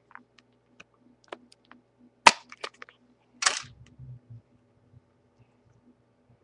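Plastic clicks and clacks of hands working a Sony Xperia X10 smartphone to take its battery out: a sharp click a little over two seconds in, a short scraping clack about a second later, and lighter taps around them.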